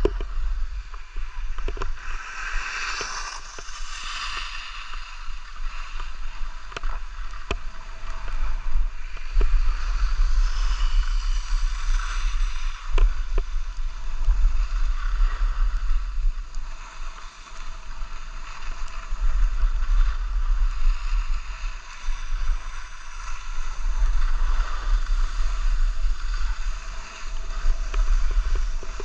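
Skis sliding and scraping over groomed packed snow at speed, a steady hiss that swells and eases with the turns, with wind buffeting the microphone as a low rumble.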